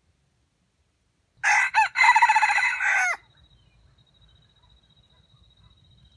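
Red junglefowl rooster crowing once: a short crow of under two seconds, with a brief break after its opening note and a drawn-out final note that falls away at the end.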